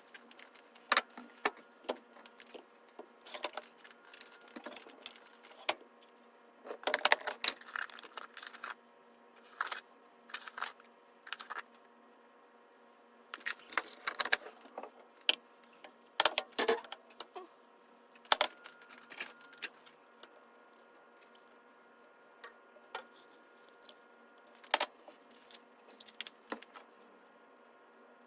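Irregular clinks and clicks of hard objects being handled, busiest in the first two-thirds and sparser near the end, over a faint steady hum.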